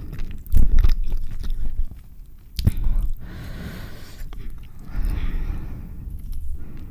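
Close-miked chewing of a mouthful of carne asada burrito (flour tortilla and grilled beef), with wet mouth clicks and smacks. The clicks come thickest in the first three seconds, and stretches of softer rustling follow.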